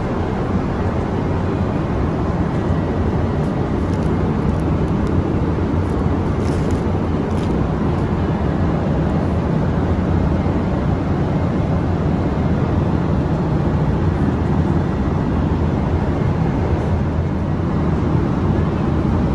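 Steady jet airliner cabin noise in flight: the even rumble of engines and airflow inside a Boeing 777-200LR.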